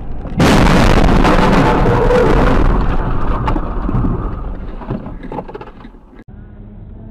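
A vehicle collision: a sudden loud crash about half a second in, followed by scraping and scattered clattering that fades away over the next few seconds.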